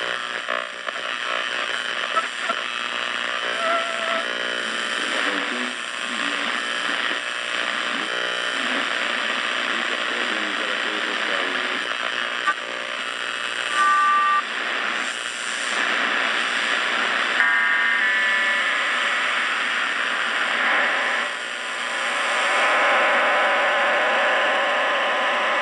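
Hallicrafters S-38D tube shortwave receiver being tuned across a shortwave band: a steady hiss of static with short whistling tones that come and go as the dial moves, the noise growing louder a few seconds before the end.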